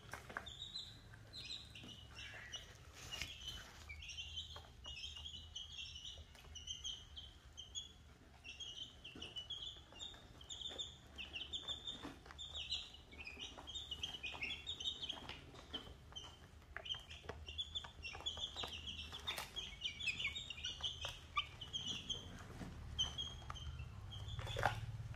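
A brood of chicks peeping continuously, many short high chirps overlapping one another, with a few sharp taps scattered through.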